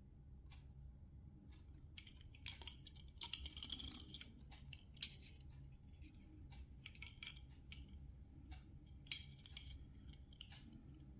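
Short scraping swishes and light metallic clicks of a knife blade being worked, loudest in bunches about two to four seconds in and again about nine seconds in.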